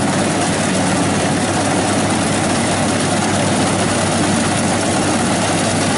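Yanmar 82 combine harvester running as it harvests rice: a steady low engine hum under a dense, even noise from the machine.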